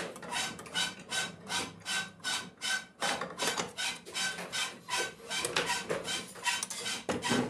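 Rapid rasping strokes of hand work on a cast-iron sewing machine body, about four strokes a second, each with a faint metallic ring.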